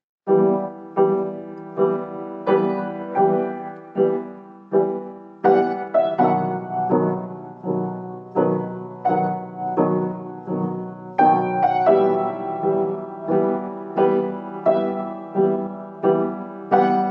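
Solo upright piano playing a slow, gentle melody, one note or chord struck about every three-quarters of a second and left to ring out, starting just after a brief silence.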